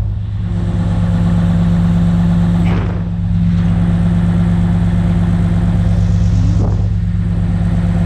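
Small excavator's diesel engine running at a steady pitch while its arm and bucket are worked.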